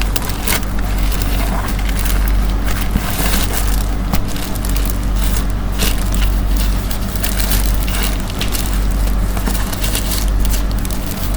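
Packaging being handled and opened: irregular crinkling, rustling and clicking over a steady low hum.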